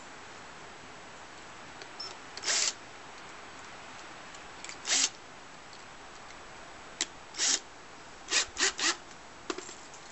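Cordless drill's chuck being turned by hand to fit a bit: short raspy ratcheting bursts every couple of seconds, then three in quick succession near the end, with a couple of sharp clicks.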